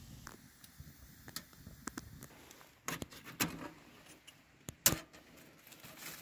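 Light metal clinks and knocks in small clusters, the sharpest about five seconds in, from handling the parts of a titanium wood-burning tent stove.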